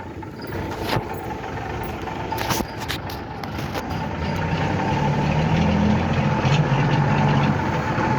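A motor engine running steadily with a steady whine, growing louder and deeper from about five seconds in, with a few clicks near the start.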